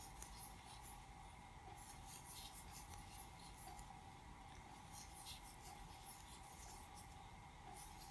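Faint, irregular scratchy rustling of worsted-weight yarn drawn over a metal crochet hook and through the fingers while single crocheting, over a steady faint hum.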